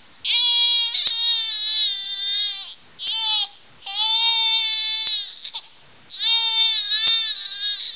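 Infant crying in four wails, the first and last long and the second short, with brief pauses for breath between them.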